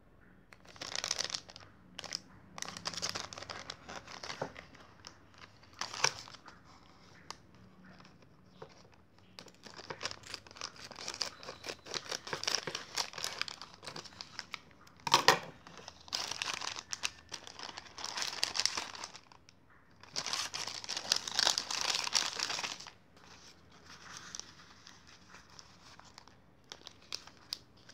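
A shiny foil-plastic packet crinkling and rustling in repeated bursts as it is handled and cut open with scissors, with a sharp snap about fifteen seconds in. Near the end a folded paper leaflet rustles as it is pulled out and opened.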